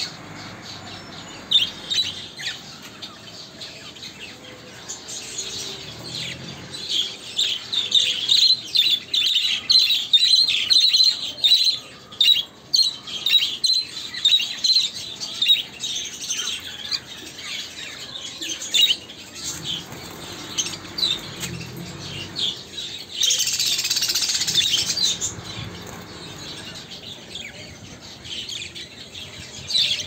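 A flock of caged budgerigars chirping and chattering, with many short calls overlapping, busiest in the first half. About two-thirds of the way through comes a brief burst of wing flapping.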